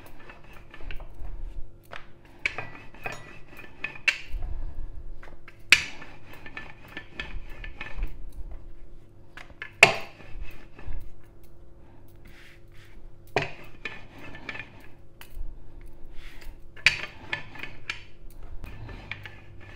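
Wooden rolling pin rolling out yeast dough on a floured countertop: repeated back-and-forth rolling passes with a sharp knock every few seconds.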